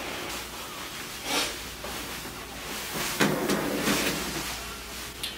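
Soft rustling of clothing as a pair of track pants is pulled on: a few brief swishes over quiet room tone.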